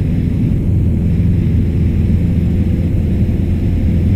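Light aircraft's engine and propeller running at a steady drone, heard from inside the cabin in flight.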